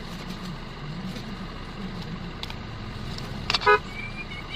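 Steady rumble of road traffic, with a short vehicle horn toot about three and a half seconds in.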